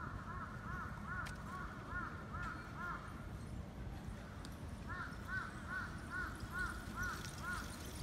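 A crow cawing in quick runs of short calls, about two or three a second. One run lasts until about three seconds in, and a second runs from about five seconds in until near the end.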